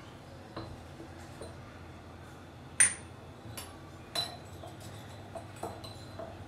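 A few light metallic clinks and taps around a steel pressure-cooker pot. The loudest is a single sharp ringing ping about three seconds in, with a second clear clink about a second later.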